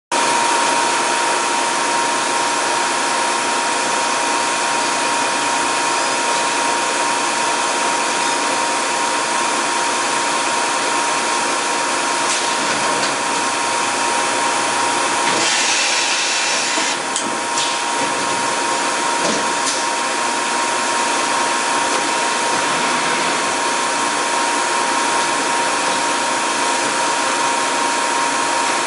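Matsuura MAM-600HF-PC-2 CNC horizontal machining center running under power as its pallet changer swaps and turns the pallets: a steady loud whirring hiss with a steady whine in it. About halfway through comes a brief louder hiss, followed by a couple of clicks.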